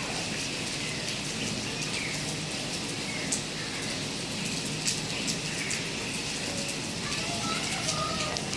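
Steady rain falling, a constant hiss with a few sharper drop ticks, for example about three and five seconds in.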